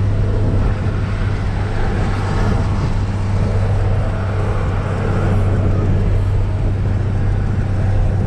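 A pickup truck driving at a steady speed, heard from inside the cab: a steady low engine drone under road noise.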